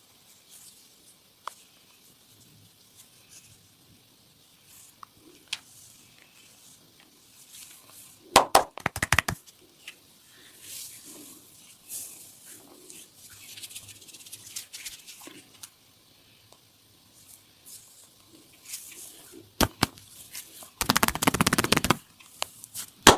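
Hands massaging a person's upper body: soft rubbing on skin and clothing with scattered light clicks, broken by two short bursts of quick sharp hits, one about eight seconds in and a longer, denser one near the end.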